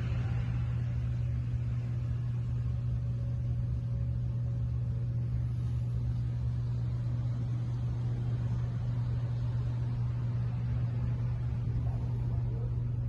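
Inflatable hot tub's pump unit running with a steady low electric-motor hum.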